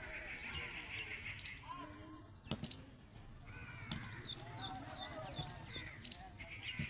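Outdoor birdsong: several birds calling, with harsh calls and quick series of high, short chirps, plus a few sharp clicks.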